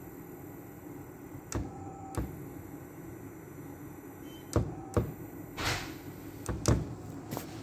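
Sharp clicks and knocks, about seven in all and coming in pairs, as the front-panel keys of a Panasonic MCDHT3520 servo drive are pressed during a jog test. A short faint whine sounds between the first two clicks and again between the next two. Underneath runs a steady low hum with a faint high electronic whine.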